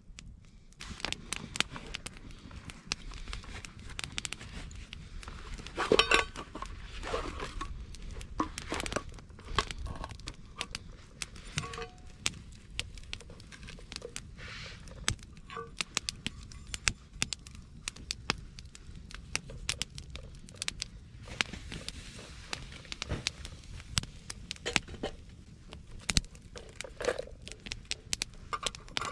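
Wood campfire crackling with many sharp snaps, mixed with clinks and rustles of a metal cooking pot and fresh vegetables being handled; one louder knock about six seconds in.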